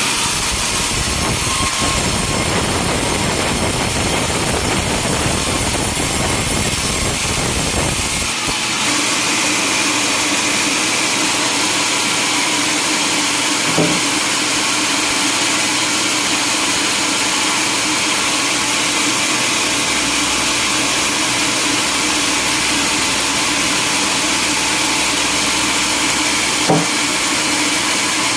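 Log sawmill running, its saw and engine making a loud, steady noise while cutting timber. The low rumble drops away about eight seconds in, leaving a steady hum, and there is a short knock twice later on.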